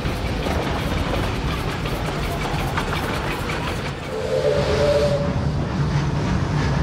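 Narrow-gauge steam train running, with low rumble, hissing steam and faint clicks. About four seconds in, a short steady tone sounds for about a second over a steady low hum.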